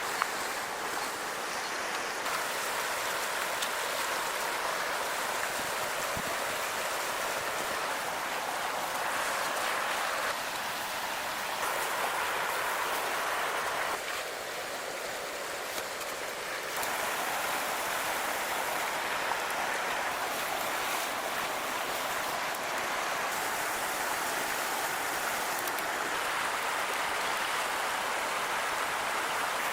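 Steady rushing water noise, shifting abruptly in tone and level a few times.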